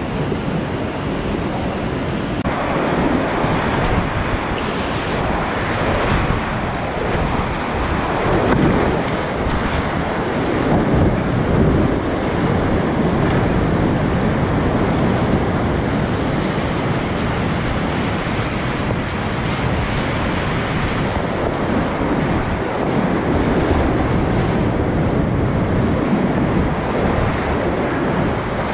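Loud, steady rush of whitewater rapids heard from inside a kayak, with water splashing and buffeting the action camera's microphone. The rush changes abruptly a couple of times in the first few seconds.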